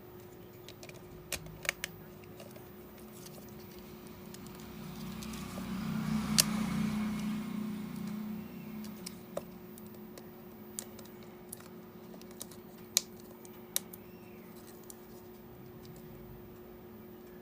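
Scattered light clicks and taps of small hand tools and parts being handled while a smartphone display is repaired. A louder rush of low noise swells for a few seconds in the middle with one sharp click in it, over a steady low hum.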